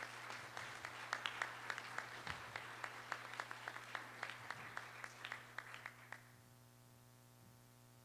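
Audience and panel applauding, a crowd of hand claps that dies away about six seconds in, with a steady electrical hum underneath.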